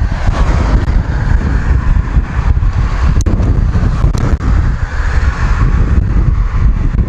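Wind buffeting the microphone of a moving bicycle, a loud, steady low rumble, with two short ticks about three and four seconds in.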